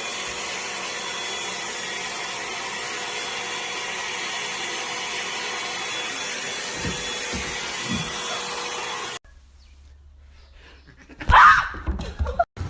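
A steady electric appliance motor running, a loud even whir with a faint whine, cutting off suddenly about nine seconds in. A short, loud sound follows near the end.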